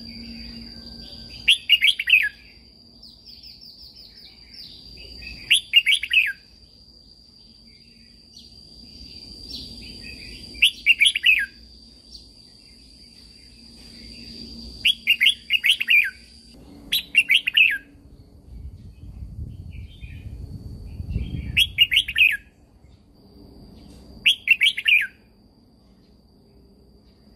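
Red-whiskered bulbul singing: about seven short, loud, bubbly song phrases, one every three to five seconds. A thin, steady high tone runs beneath the song through the first half.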